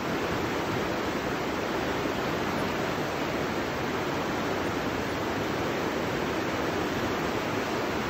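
River rapids rushing steadily over boulders, a continuous even roar of white water.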